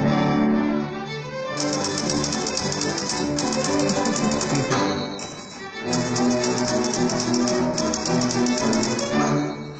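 String ensemble playing a piece scored for typewriter, with rapid typewriter key clatter riding over the strings. The clatter comes in about a second and a half in, breaks off briefly around the middle, and resumes until near the end.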